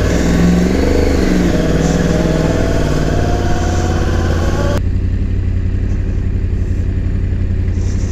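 Sport motorcycle engine pulling away at low speed, its pitch climbing gradually over the first few seconds and then running steadily. About halfway through, the upper hiss cuts out abruptly and the low engine note carries on.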